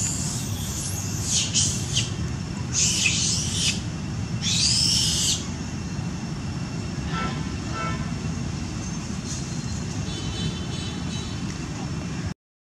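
Four short, shrill animal calls in the first five seconds, each under a second long, over a steady low rumble of distant traffic; the sound cuts out completely for a moment near the end.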